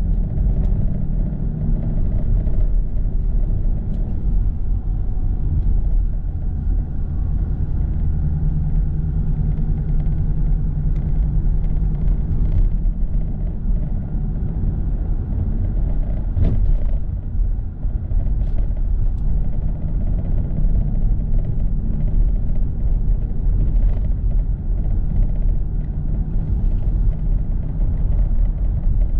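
Car driving on a city street, heard from inside the cabin: a steady low rumble of engine and road noise with an engine hum.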